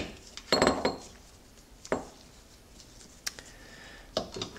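Steel gears of a 1930 Sunbeam Model 9 three-speed gearbox clinking and knocking against the selector mechanism and casing as a gear cluster is worked into place. A short flurry of clicks comes about half a second in, then a few sparse single clicks, with more near the end.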